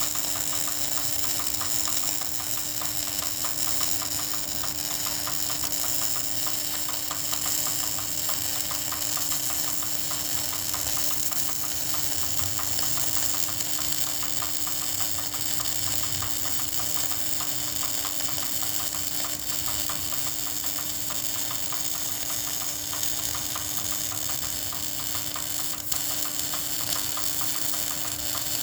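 Electric arc welding: a steady crackling, sizzling arc with a constant hum underneath, and one sharp click near the end.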